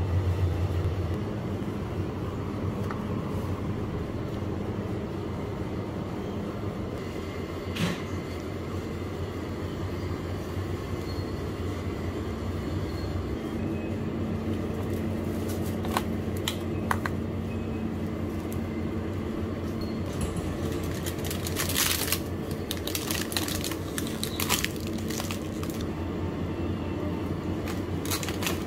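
Steady low hum of the shop's refrigerated freezer cases, with scattered clicks and crinkling of plastic packaging, most of them a little past the middle.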